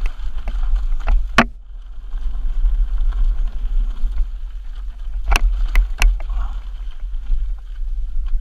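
Wind buffeting the camera microphone on a fast mountain-bike descent over a rocky dirt singletrack, with the rattle of the bike and tyres over the ground. Sharp clacks from the bike striking rocks come once about a second and a half in, and three more in quick succession around five to six seconds in.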